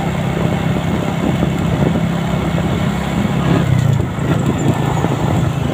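Motorcycle engine running steadily at cruising speed, with a constant hiss of wind and road noise.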